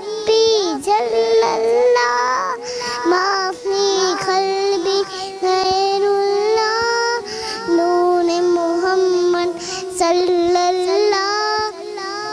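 A young girl singing an Islamic gojol (devotional song) into a microphone, one voice holding long notes with wavering ornaments between phrases.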